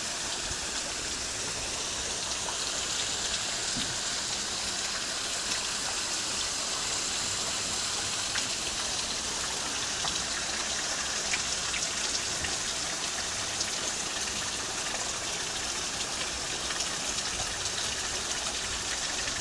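Garden fountain water splashing steadily into a pool, an even hiss with no break.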